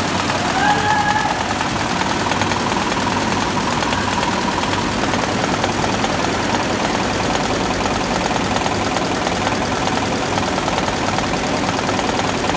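Computer embroidery machine running, a steady, loud, fast mechanical clatter of the stitching with no let-up.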